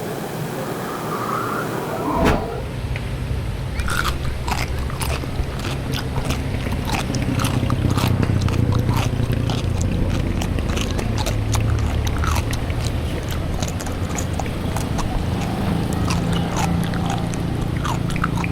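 Close-miked eating: chewing and biting with frequent short wet mouth clicks, over a steady low hum.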